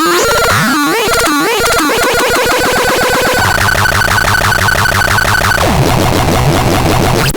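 ASTA PTS 61 playing electronic, synthesizer-like sound effects: warbling and gliding tones over a fast pulsing, with a steady high tone held from about two seconds in, then a denser buzzing pattern near the end.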